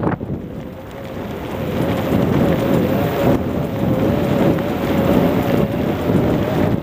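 Wind buffeting the microphone of a camera on a bike rolling fast off road, with a dense low rumble and rattle from the rough ground and a thin wavering whine. The noise drops about a second in and builds back up as the speed picks up again.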